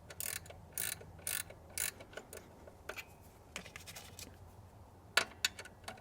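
Hand ratchet running a nut down in a few short strokes, then a handful of lighter clicks and two sharp ones near the end: the original thicker nut and lock washer going back onto the new alternator's terminal stud.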